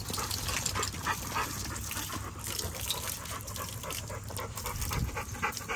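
Garden hose water splashing onto a wet concrete patio while several dogs drink from the stream, a steady crackle of short splashes and laps with dog noises mixed in.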